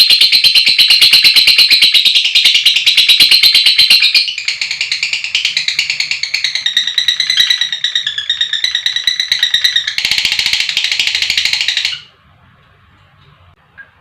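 Lovebird's long, rapid chattering trill (the 'ngekek panjang'), a fast run of shrill pulses that shifts its pattern about four seconds in and cuts off suddenly near the end.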